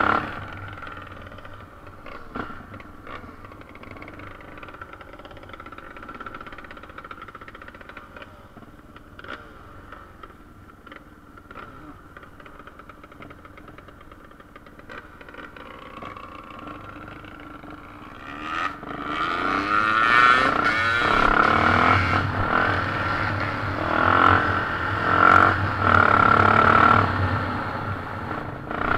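Yamaha TT600 enduro motorcycle's single-cylinder engine running on a dirt track, with knocks and rattles from the bike over the rough ground. About two-thirds of the way through the engine gets much louder and its revs rise and fall as the bike speeds up.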